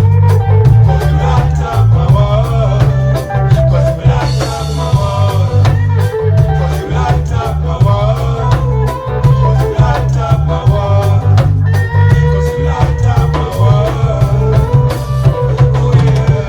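Live reggae band playing a lovers rock song, with a heavy pulsing bass line, steady drum-kit beat and instruments carrying the melody.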